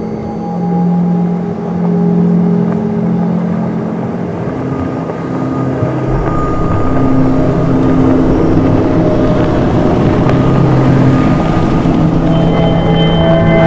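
A pickup truck drives up and passes close by. Its engine rumble and tyre noise build from about halfway through and are loudest near the end. Background music of long held notes runs throughout.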